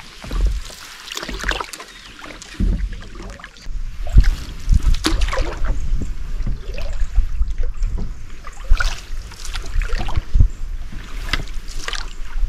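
Canoe being paddled: irregular splashes of the paddle in the water and water washing around the hull.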